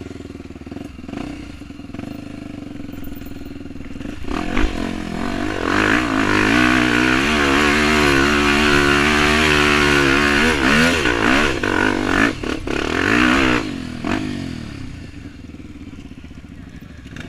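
Dirt bike engine running low at first, then revving hard under load, its pitch wavering up and down for about ten seconds, then dropping back to a low run near the end.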